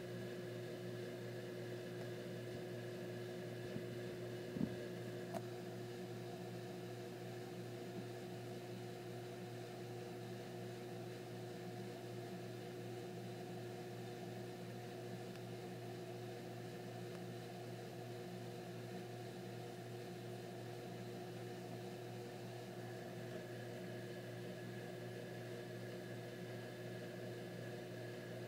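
Steady mechanical hum made of several fixed tones, with a few faint clicks about four to five seconds in.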